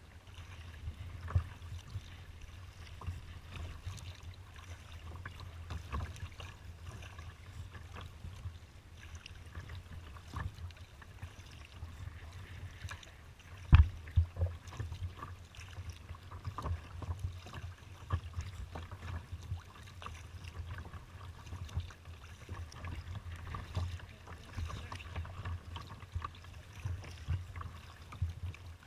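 Choppy water slapping and splashing against a sea kayak's hull, in irregular knocks over a steady low rumble. One sharp knock about halfway through is the loudest moment.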